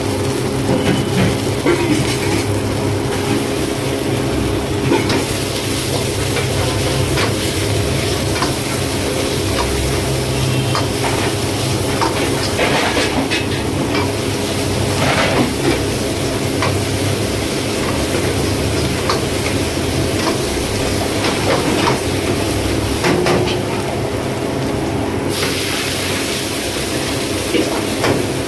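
A metal ladle stirs and scrapes through food frying and sizzling in a steel wok over a burner, with a steady low hum underneath. Occasional clanks and scrapes of the ladle stand out. Late on the hiss grows suddenly louder and higher as liquid goes into the hot wok.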